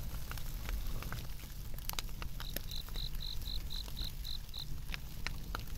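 Wood fire crackling in a fire pit, with sharp pops scattered throughout over a low steady rumble. In the middle an insect chirps about nine times in quick, even succession.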